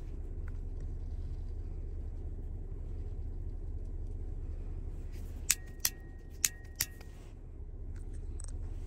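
Four sharp metallic clicks from a Staccato CS pistol being handled, in two quick pairs with a faint ring under them, over a steady low rumble inside a vehicle cabin.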